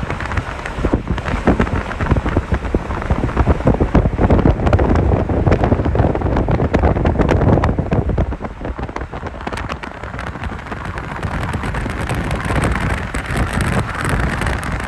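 Wind and road noise of a car driving at highway speed, with wind buffeting the microphone in dense crackles. It is loudest in the first half and eases a little after about 8 seconds.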